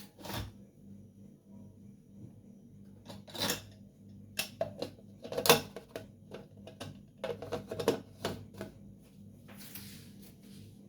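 Irregular clicks and knocks of kitchen containers and utensils being handled, with a short hiss near the end; no blender motor runs.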